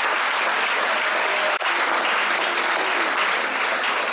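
Dinner audience applauding steadily and loudly for an award winner, with a momentary break about one and a half seconds in.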